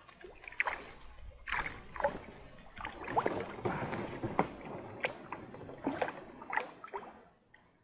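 River water splashing and sloshing at the side of an inflatable boat, with a wire-mesh keepnet being handled in the water. The small splashes come irregularly and die away near the end.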